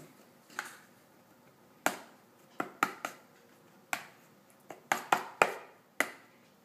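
Metal spoon clicking and scraping against a plastic cat bowl and plastic tub while scooping and mashing wet cat food: about a dozen sharp clicks at uneven intervals.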